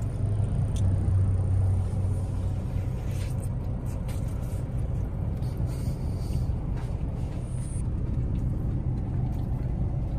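Steady low hum of a car, heard from inside its cabin, slightly louder in the first few seconds, with a few faint soft crunches of chewing a fried chicken sandwich.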